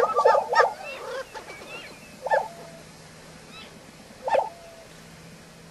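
Lesser prairie-chickens calling: a quick run of short calls in the first second, with higher chirps, then single calls about two and four seconds in.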